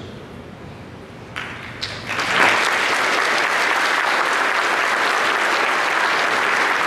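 Audience applauding: a few scattered claps, then full, steady applause from about two seconds in.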